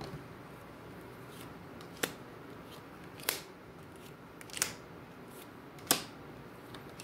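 Tarot cards being handled and laid on a table: four sharp card snaps about a second and a half apart, with a few fainter ticks between.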